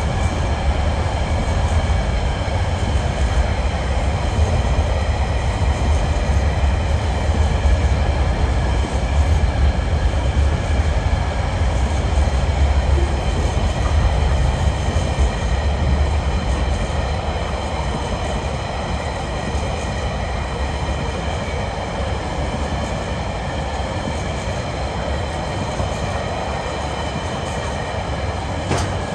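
Container flat wagons of a long freight train rolling past: a steady heavy rumble of wheels on rail with a steady high ringing over it, easing a little after about halfway, and a sharp click near the end.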